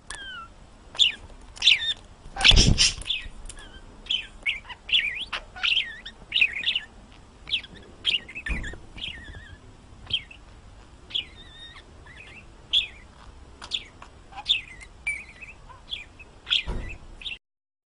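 Pet parrot chirping in short repeated calls, about one or two a second, with a few louder calls: one about two and a half seconds in, one midway and one near the end.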